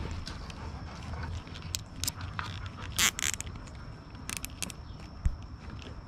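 Nylon zip tie ratcheting as it is pulled tight around a bundle of wire connectors, in short zips about three seconds in and again a little after four seconds, with small plastic clicks as the connectors are handled.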